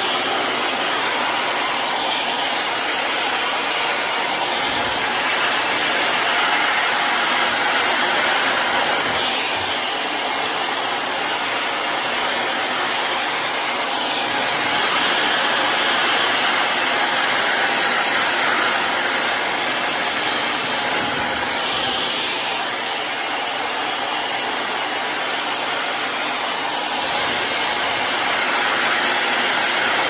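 Dyson Supersonic hair dryer running steadily, an even rush of blown air. The level rises and falls a little as the dryer is moved over the hair.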